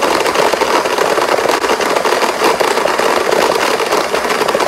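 Countertop blender running at full speed, its motor whirring steadily as it blends candy pieces into a milky liquid.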